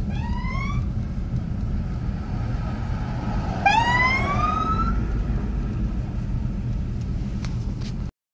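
Steady low rumble of road traffic and wind, with two short rising whoops, the second longer, about three and a half seconds apart.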